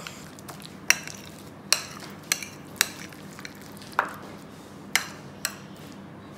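A metal spoon stirring chunky guacamole of mashed avocado, diced tomato and red onion in a bowl: a soft, wet mixing noise with about seven sharp clinks, roughly one a second, as the spoon strikes the bowl's side.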